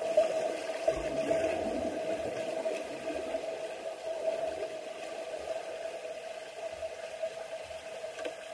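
Underwater sound in a swimming pool: muffled splashing and bubbling from swimmers' arm strokes and kicks passing overhead, thinning out after the first few seconds, over a steady hum.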